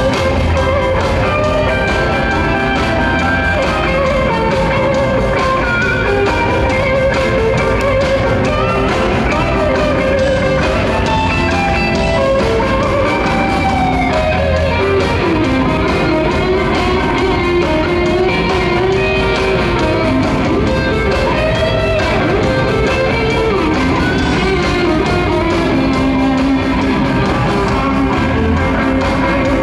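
Live rock band playing loud and without pause, electric guitars leading an instrumental passage over bass and drums, amplified through an arena PA.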